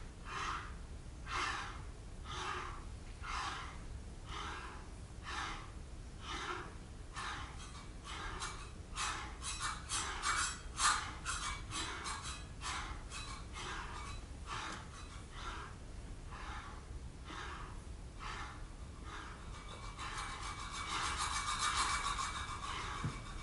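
Service bells on a tabletop played with short, hissing scraping strokes rather than rung: about one stroke a second at first, quickening and crowding together, then merging into a sustained hiss with a faint high ring near the end.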